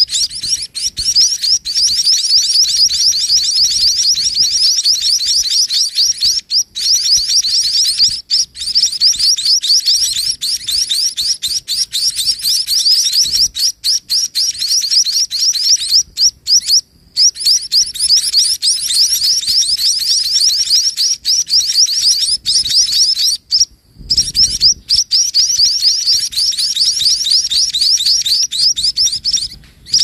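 A brood of munia nestlings begging at the nest while the parent feeds them: a continuous chorus of rapid, high, thin chirps, broken by a few brief pauses.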